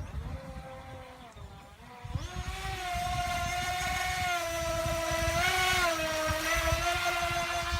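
Electric motor of an FT012 remote-control speed boat running at speed: a high whine that comes in strongly about two seconds in and then holds steady, wavering slightly, with a brief rise in pitch near the middle. A low rumble lies underneath.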